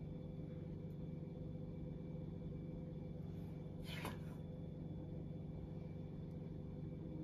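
Steady low hum of room tone, with a brief soft scrape about four seconds in.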